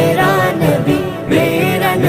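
Background devotional music: an Urdu naat in praise of the Prophet, sung with an ornamented, wavering melody.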